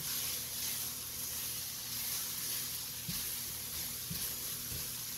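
Sliced onions sizzling steadily in chicken fat in an enamelled cast-iron pan as a slotted spatula stirs them, with three soft low knocks in the second half. The onions are being cooked until translucent.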